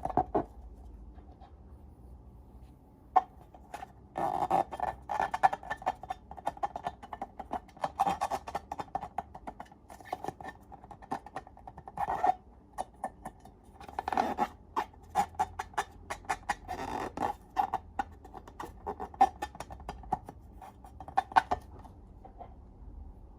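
Slime being squeezed and worked by hand: irregular runs of sticky clicks, pops and crackles, with short quieter pauses.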